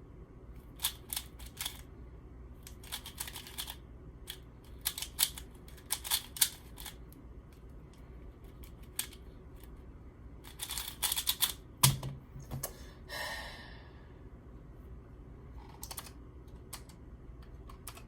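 Plastic 3x3 speedcube being turned by hand: bursts of quick clicking turns with pauses between them. There is a louder knock just before the middle, with a brief scrape after it.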